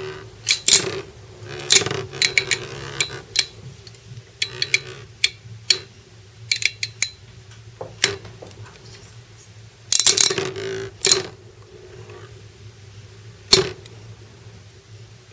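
Metal Fight Beyblade parts, metal wheels and plastic pieces, clicking and clinking as they are handled and snapped together: irregular sharp clicks and short rattles, a few with a brief metallic ring, over a steady low hum.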